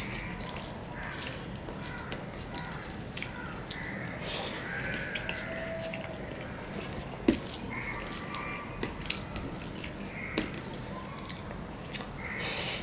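Wet eating sounds: fingers squishing and mixing rice with curry on a steel plate, and mouth clicks and smacks of chewing, with many small sharp clicks and one sharper click about seven seconds in.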